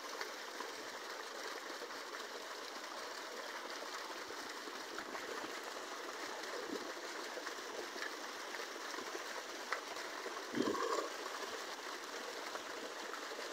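Fountain water splashing steadily into its basin, with one short louder sound about three quarters of the way through.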